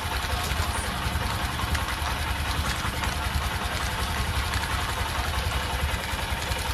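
Honda SP125's single-cylinder motorcycle engine idling steadily.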